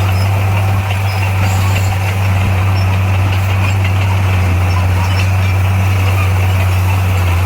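Heavy diesel engine of earthmoving machinery running steadily, a loud, even low drone that doesn't change in pitch.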